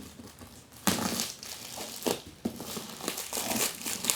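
Crinkly packaging on a fibre-optic cable being rustled and pulled open by hand, in irregular crackling bursts that start about a second in, with a louder crackle near the end.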